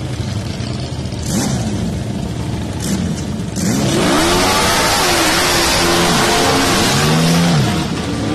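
Racing ride-on lawn mower engines revving, their pitch sweeping up and down again and again, louder from about three and a half seconds in.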